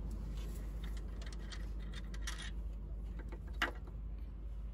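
Light metallic clinks and scrapes as the No. 3 main bearing cap of a Hino J08C diesel engine is worked loose by hand and tool, with one sharper clink about three and a half seconds in, over a low steady hum.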